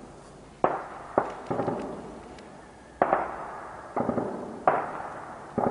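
Gunfire over a city at night: about seven sharp single shots, some in quick pairs, at irregular intervals of half a second to a second and a half, each followed by a long echo off the buildings.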